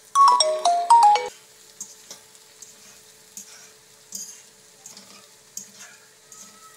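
A phone's short electronic ringtone melody: a quick run of stepped beeping notes lasting about a second, right at the start. After it come only faint rustling and light taps as shredded cabbage is tossed by hand in a wok.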